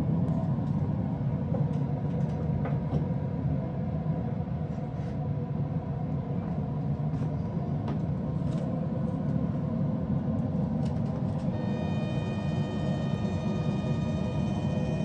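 Steady low rumble of a Weber Searwood pellet grill running hot with its lid open, with a few light metallic clicks as the rotisserie spit goes in. Near the end a steady high whine of several tones starts and holds, as the rotisserie motor begins turning the spit.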